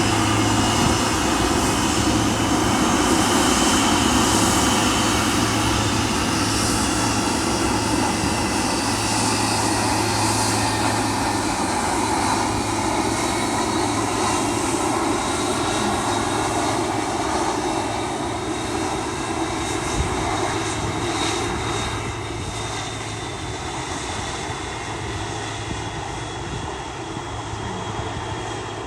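Jet airliner engines running, a steady rush with a high whine that glides slowly in pitch, the sound gradually fading over the last third.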